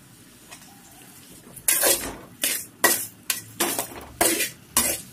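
A spatula scraping and turning sliced ivy gourd in a metal kadai: a quiet start, then from a little under two seconds in a quick run of scraping strokes, roughly two a second, as the vegetables fry in the masala.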